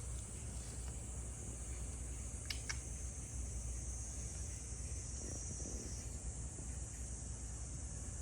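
Steady high-pitched drone of summer insects, with a low rumble underneath and two brief clicks about two and a half seconds in.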